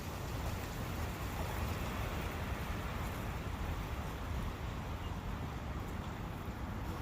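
Steady forest ambience of wind and a brook's running water: an even rush with a heavy low rumble.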